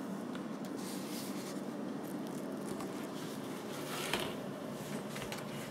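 Faint scratching and rustling of a Maine Coon kitten shuffling about under an upturned plastic laundry basket, the basket rubbing on the tile floor, over a steady background hiss.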